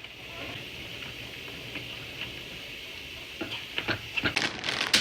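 Food sizzling in a hot pan as a steady hiss, with crackling and spattering pops starting about three and a half seconds in and growing denser near the end.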